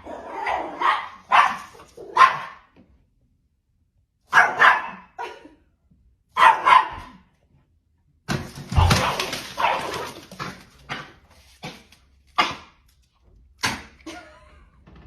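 Dog barking in short bursts, several barks in quick succession, then single barks with pauses between them.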